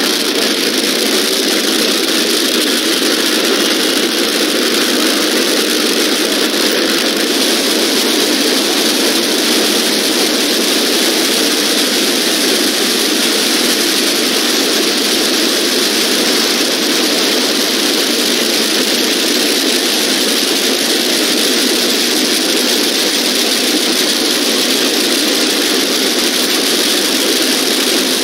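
Funny car drag-racing engines running at idle: a loud, steady roar that holds unchanged throughout, with no revving.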